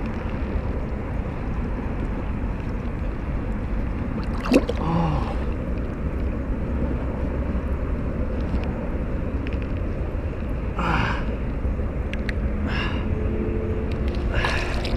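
Water sloshing and gurgling as a person wades through a pond, over a steady low rumble, with a sharp click about four and a half seconds in.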